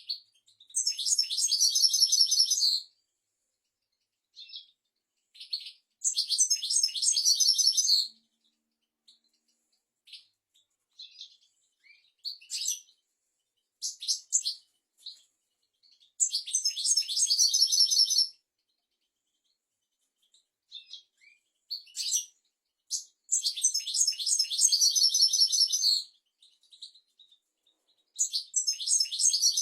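European goldfinch singing: several dense, high twittering phrases of about two seconds each, with short single notes scattered in the pauses between them.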